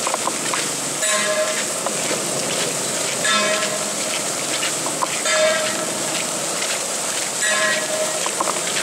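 A hand gong struck about every two seconds, each stroke ringing briefly and fading, over the steady hiss of heavy rain.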